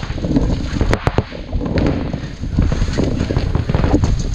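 Wind and rain buffeting the microphone of a camera mounted on a paintball marker, with a quick run of sharp paintball shots about a second in and a few more single snaps later.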